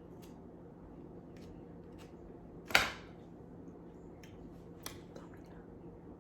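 Faint clicks and taps of food being handled, with one short, louder scrape or rustle about three seconds in, over a low steady hum.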